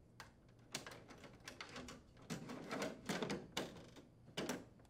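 The plastic-framed air filter of a Frigidaire window air conditioner being slid into the front grille's slot: faint, irregular scraping and clicking of plastic against plastic.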